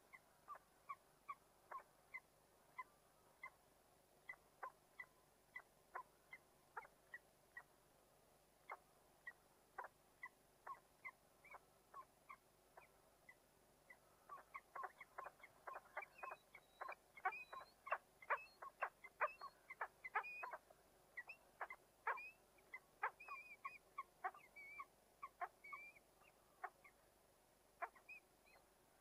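A bird at a nest box giving a long series of short, sharp calls, spaced out at first, then coming rapidly for several seconds about halfway through before slowing again.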